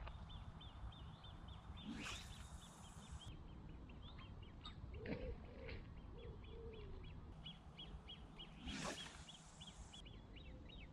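Faint waterside birdlife. A rapid high ticking call repeats through most of the stretch, and a duck quacks a short falling series of about four quacks around five seconds in. Two brief hissing rushes of noise come at about two and nine seconds.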